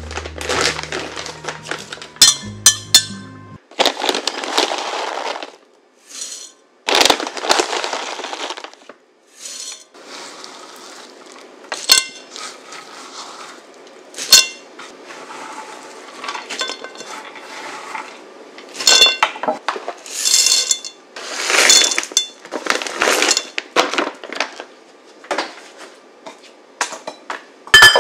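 Nuts, seeds and oats poured into a glass mixing bowl, in a series of short rattling pours with sharp clinks of almonds and pumpkin seeds against the glass.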